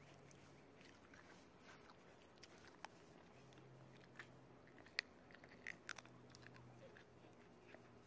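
Near silence: faint outdoor background with a few soft clicks and taps, the sharpest about five seconds in.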